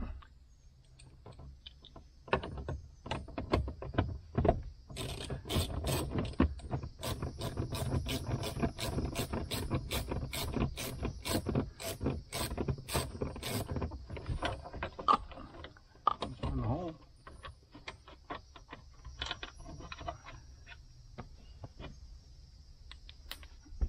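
Hand tools clicking and knocking against metal and plastic trim under a pickup's dashboard: a run of sharp clicks, one or two a second, for about nine seconds in the middle, with quieter handling noise before and after.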